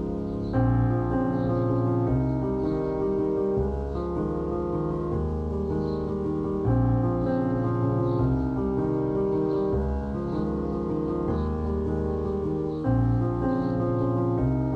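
Background music, slow sustained piano or keyboard chords that change about every one to two seconds.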